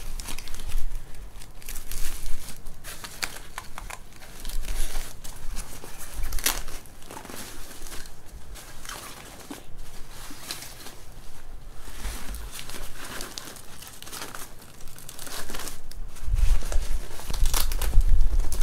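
Nylon fabric of a baby play yard's changing station rustling and crinkling as it is handled and fastened to the frame, with scratchy rips of Velcro straps. Dull bumps near the end.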